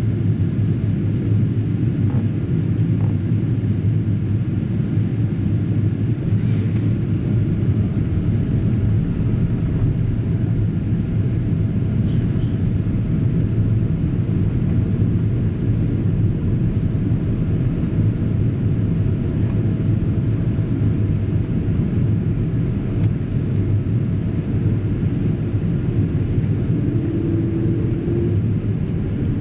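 Steady low rumble of a Boeing 777-200ER's engines and rushing airflow, heard inside the passenger cabin while the airliner descends on approach.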